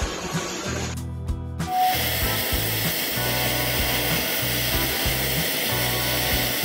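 Background music with a steady bass line. After a cut about a second and a half in, the even hiss of an oxy-acetylene cutting torch on a self-propelled track cutter, flame-cutting thick steel plate, runs under it.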